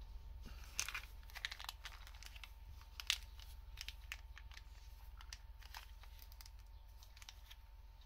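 Small clear plastic bag crinkling in gloved hands in irregular crackles, sharpest about a second in and again about three seconds in, dying away after about six seconds.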